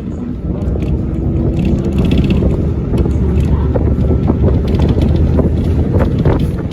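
Steady low rumble with wind buffeting the microphone, and a few faint clicks.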